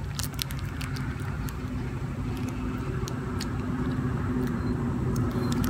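A steady low engine-like hum, slowly growing louder, with many small quick clicks from a baby monkey eating and a snack wrapper being handled.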